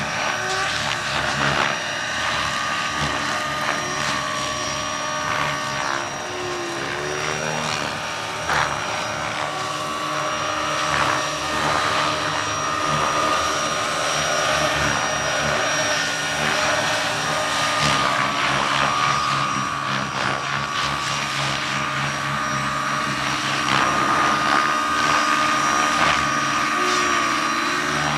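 Large scale model Agusta-Westland EH101 radio-controlled helicopter in flight, its electric drive and rotors giving a steady whine over a low rotor hum. The whine rises and falls slightly in pitch as the helicopter manoeuvres and comes in low.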